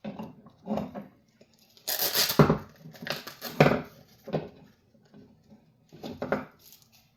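Hands handling small 3D-printed plastic lapidary parts: a string of irregular rustles, scrapes and light knocks, busiest and loudest between about two and four seconds in.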